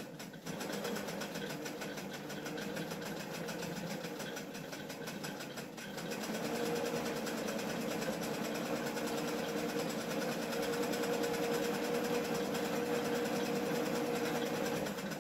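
Electric sewing machine stitching through four layers of gauze, running in one continuous stretch of rapid needle strokes. It eases off briefly about six seconds in, runs a little louder after that, and stops suddenly at the end.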